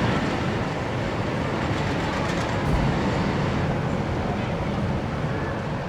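Roller coaster train running along its track: a steady rumble and rattle of wheels on rail.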